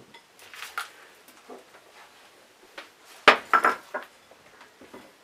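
Kitchen clatter of a bowl and utensils being handled over foil trays: scattered light clicks, with a quick run of sharp knocks and clinks about three and a half seconds in.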